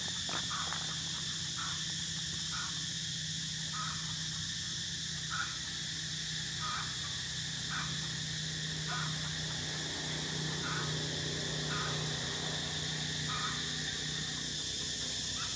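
Steady high-pitched insect drone, with a short call repeating about once a second.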